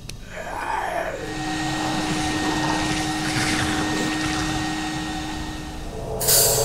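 A steady, machine-like whirring drone with a few held tones, which comes in after a falling swoosh in the first second. A loud burst of hiss cuts in near the end.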